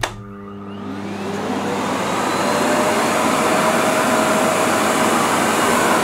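Canister vacuum cleaner switched on with a click, its motor spinning up in a rising whine over the first second or two, then running steadily at full suction.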